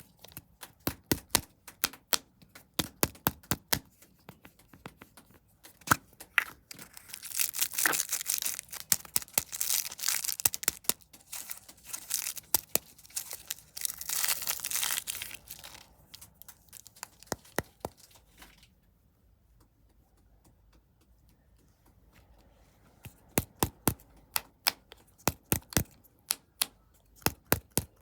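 Snack packaging being unwrapped close to the microphone: a run of sharp clicks and taps, then several seconds of plastic wrapper tearing and crinkling. After a brief lull, more sharp clicks follow near the end.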